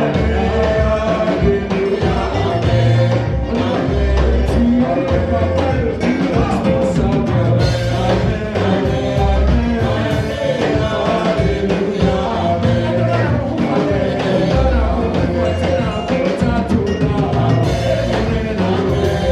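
Live praise-and-worship band playing a gospel song with singing, bass and drums keeping a steady beat.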